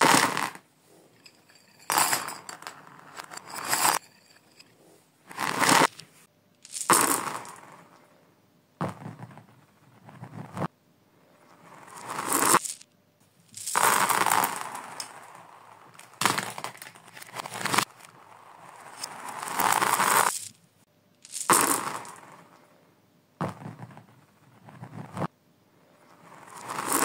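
Handfuls of small hard toys and beads clattering onto a hard floor, played backwards, so each scatter swells up and cuts off sharply. It repeats about fifteen times, one every second or two.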